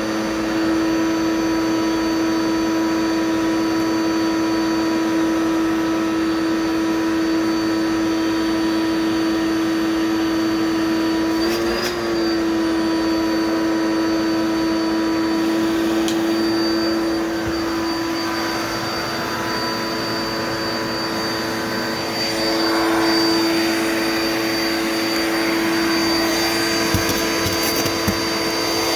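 Dirt Devil Multi Surface vacuum cleaner running steadily, its motor holding one steady pitch while it picks up wrappers. There is a brief hitch about a third of the way through, and the air rush grows louder for a few seconds about two-thirds in.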